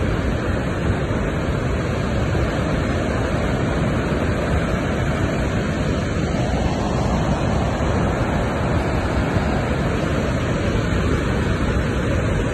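A river in flood after heavy rain, its muddy water rushing through rocky rapids: a steady, unbroken rush of water.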